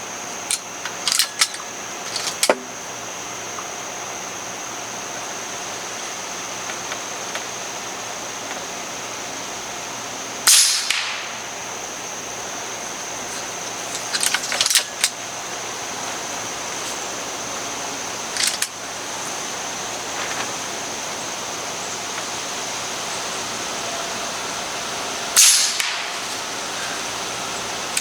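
JTS Airacuda Max .30 caliber regulated PCP air rifle fired twice, about fifteen seconds apart: once about ten seconds in and once near the end, each a sharp crack. Smaller metallic clicks from the action being cycled and reloaded come between the shots. A steady high whine and a low hiss sit underneath.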